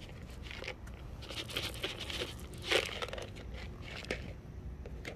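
Irregular crunching and scraping, with one louder crunch about two-thirds of the way through.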